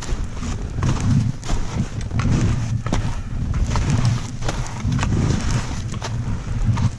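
Skis turning through powder snow: a hissing swish with a low rumble that swells roughly once a second, turn after turn, and scattered sharp clicks and knocks.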